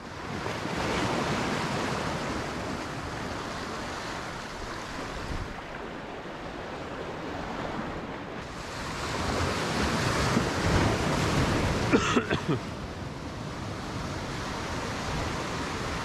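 Sea waves breaking and washing over rocks, a steady rushing surf that swells and falls, with wind buffeting the microphone. About twelve seconds in, a brief sharp sound cuts through the surf.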